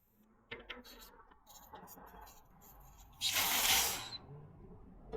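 A few small clicks and rattles of a tool working a Presta valve, then a burst of air hissing out for about a second, about three seconds in: the inflated tubeless tire venting as its valve core is unscrewed.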